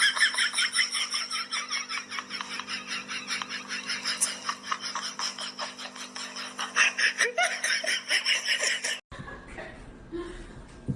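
A person laughing hard, a fast unbroken run of ha-ha-ha, which cuts off suddenly about nine seconds in, leaving only faint room sound.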